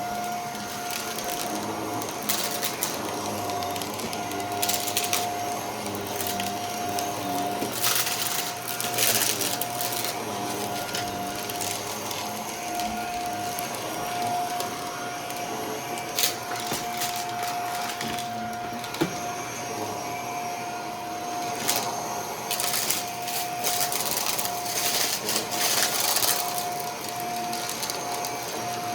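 Vacuum cleaner running with a steady motor whine. Several times it gives a short louder rush and rattle as debris is sucked up, the longest about eight seconds in and again from about twenty-two to twenty-six seconds.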